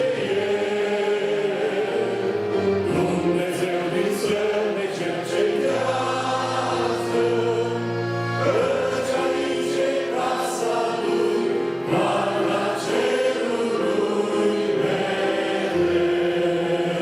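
A church choir sings a hymn in Romanian over instrumental accompaniment with held bass notes.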